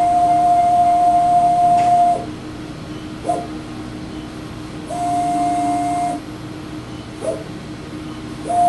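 Motorized stage of a Ram Optical Sprint CNC-300 video measuring machine whining as it drives between measuring points under program control. A steady whine lasts about two seconds, followed by a short blip, a move of just over a second in the middle, another blip, and a new move starting near the end.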